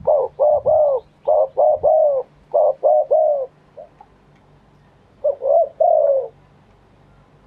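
Spotted dove cooing: a quick run of short, arched, mellow coo notes in groups, a pause, then another short phrase of coos.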